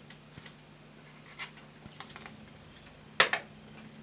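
Light clicks and scrapes of hands handling a 3D-printed plastic model locomotive chassis and its small parts, then a sharp double knock about three seconds in as the chassis is set down on the wooden table.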